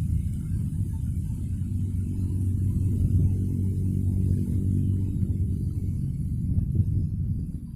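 A steady low rumble, with a faint hiss above it.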